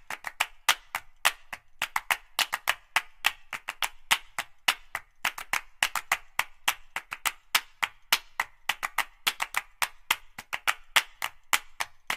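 Background music: a percussion track of sharp wood-block-like clicks at a quick, steady beat, with the bass dropped out.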